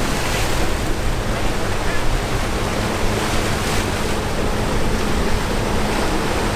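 Waves breaking and wind buffeting the microphone in a steady wash of noise, with a faint, steady low hum from a boat engine through most of it.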